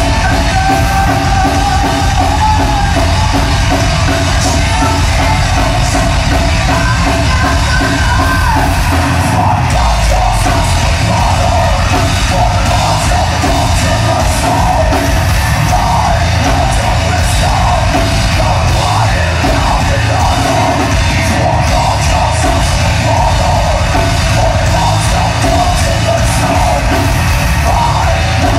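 A heavy metal band playing live at full volume: a female vocalist over bass, guitar and a pounding drum kit. The low end drops out for a moment about ten seconds in.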